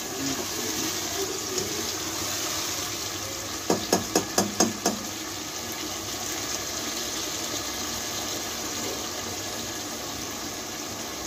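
Potato and fenugreek curry cooking in a non-stick pot with a steady sizzling hiss. A little under four seconds in, a spatula knocks about six times in quick succession against the pot.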